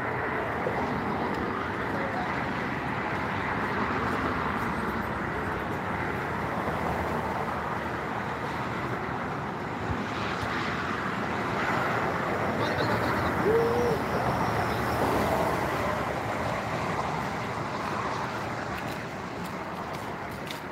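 Steady outdoor background noise, with a short, faint rising-and-falling call about two-thirds of the way through.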